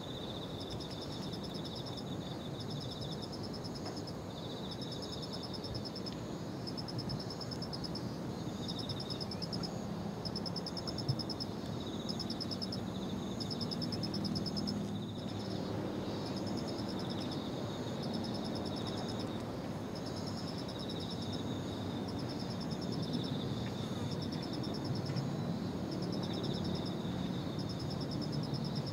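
Several insects singing at once in short, rapidly pulsed high-pitched trills that repeat over and over, over a steady low background rumble.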